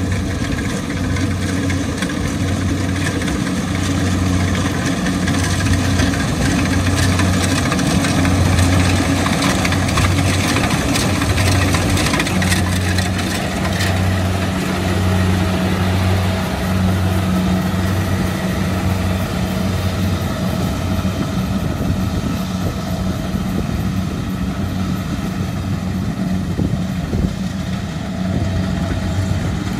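Kubota DC70 rice combine harvester running under load as it cuts and threshes rice: a steady diesel engine drone with a pulsing low hum, and a second steady low tone joining about twelve seconds in.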